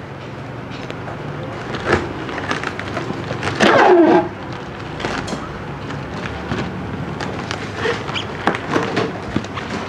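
Busy market background noise with scattered clicks and rustles of clear plastic food containers being handled; a voice calls out briefly about four seconds in.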